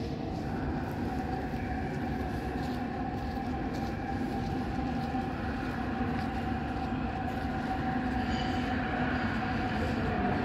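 Warsaw Metro train approaching along the platform: a steady rumble with a humming tone over it, growing a little louder near the end as it draws closer.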